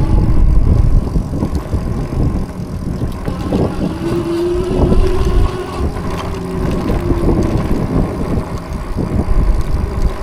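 Wind buffeting the microphone and tyre rumble as a Super73 Z-Miami e-bike rides over a bumpy road, with frequent knocks and rattles from the bike over the bumps. A faint whine rises and falls in pitch in the middle.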